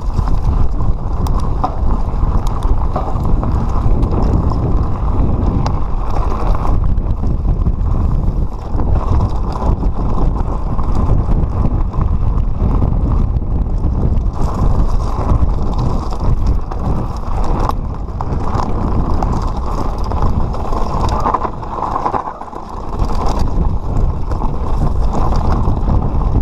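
Mountain bike descending a rocky trail at speed: continuous rumbling wind noise on the action camera's microphone mixed with tyres rolling over loose stones, with occasional sharp knocks from the bike. The noise drops briefly about 22 seconds in.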